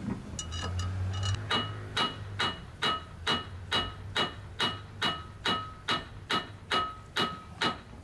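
Hammer blows on the steel drive pulley of an electric compressor motor. A few light taps give way, about a second and a half in, to steady strikes a little over two a second. Each strike rings with a clear metallic tone.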